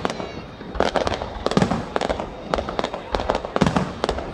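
Aerial fireworks bursting in quick succession: sharp bangs about three or four a second, each with a low rumble trailing after.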